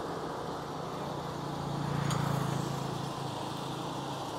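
A motor vehicle engine idling steadily, swelling louder for a moment about two seconds in, with a faint click at the same point.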